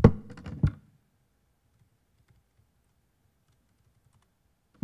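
Laptop keyboard keys typed in a quick run of clicks during the first second, then quiet, with one more key click near the end.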